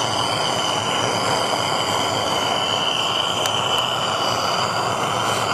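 Handheld gas torch burning with a steady hiss and a steady high whistle, its flame heating rust-seized valve lifters in a Hercules ZXB engine block to free them.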